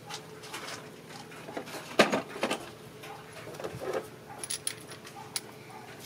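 Metallic clinks and knocks of hand tools and a spark plug being handled, the loudest knock about two seconds in, with lighter ticks later.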